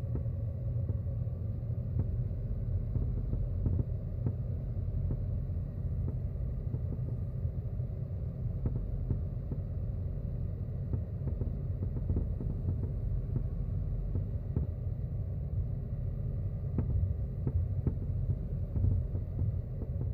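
Subaru WRX S4 (VAG) driving slowly, heard in the cabin from the passenger footwell: a steady low road rumble with irregular knocking and cracking clunks ("koto-koto", "boki-boki") from the left front of the car. It is an abnormal noise that appears at about 20–40 km/h when driving straight or steering left; its cause is not identified.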